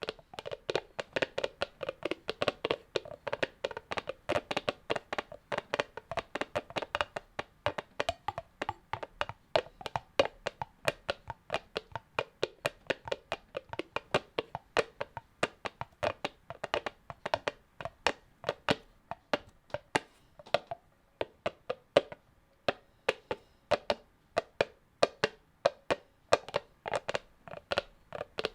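Foley imitation of horse hoofbeats made by hand: a continuous, slightly uneven run of sharp clip-clop knocks, about four a second.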